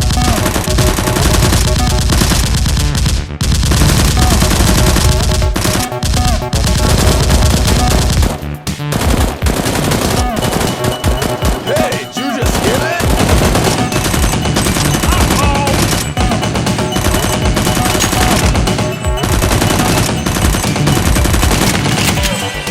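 Rapid, continuous machine-gun fire sound effects over action background music, with brief pauses in the firing.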